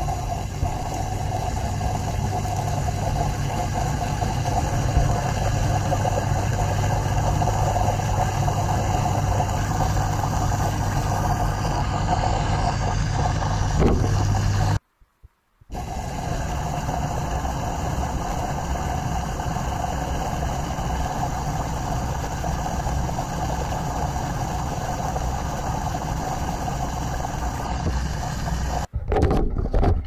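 Submersible pond pump running underwater as a bottom vacuum, sucking sludge off the pond floor: a steady low motor hum under rushing water noise. The sound breaks off for about a second halfway through, then resumes.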